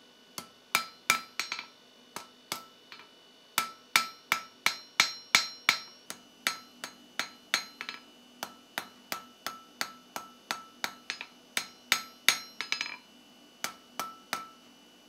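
Hand hammer striking a hot steel bar on the face of a double-horn anvil, about three blows a second in runs broken by two short pauses, each blow ringing. The smith is thinning out the end of a flat hook blank.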